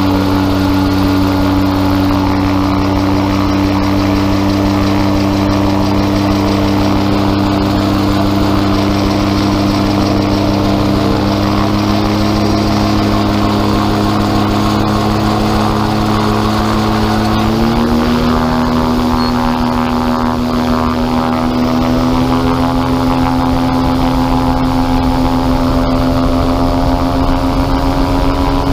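Gyrocopter's engine and propeller running steadily on the ground; just past halfway the engine speeds up a little and holds at the higher speed.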